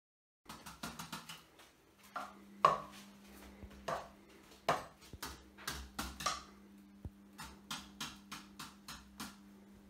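Wooden drumsticks striking the rubber pads and cymbals of a Roland electronic drum kit in quick, irregular hits, giving only the dull knocks and clicks of sticks on pads with no drum sound from the kit itself. A faint steady hum starts about two seconds in.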